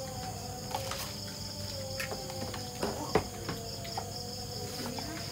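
A steady, high-pitched chorus of crickets and other night insects, with a few short clinks of spoons on plates.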